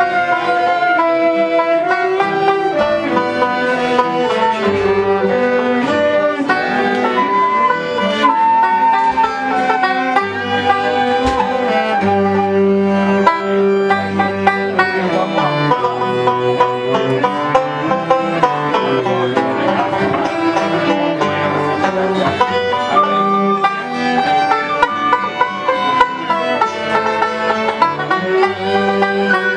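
Live acoustic string music in a traditional session: a bowed cello plays along with other string instruments in a continuous tune.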